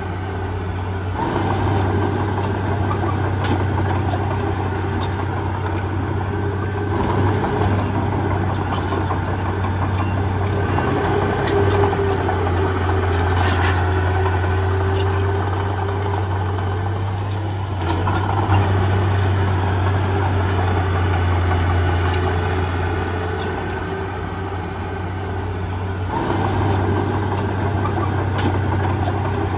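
Heavy diesel engine running steadily, swelling and easing in level several times as the load changes.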